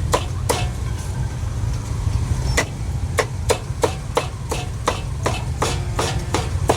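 A cleaver chopping roasted meat on a chopping block: two chops, a pause of about two seconds, then a rapid run of chops about three a second. A steady low rumble runs underneath.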